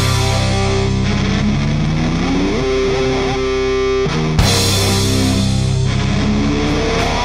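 Rock or heavy-metal music led by distorted electric guitar, with held notes and sliding, bent notes in the middle and a sharp accent a little past halfway.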